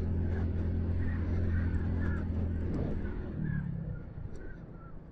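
Hero HF Deluxe i3s motorcycle's small single-cylinder four-stroke engine running with a low, steady hum that drops away after about three seconds. Short bird calls repeat about twice a second over it.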